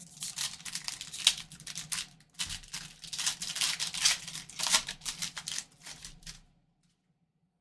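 Foil trading-card pack torn open and crinkled by gloved hands: a dense run of sharp crackles and rips with a short pause about two seconds in, stopping about six and a half seconds in.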